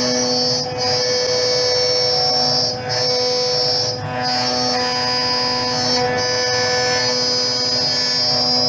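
CNC router spindle with a two-flute end mill cutting 5083 aluminium plate 2 mm deep per pass: a steady high whine over the cutting noise, dipping briefly about four times.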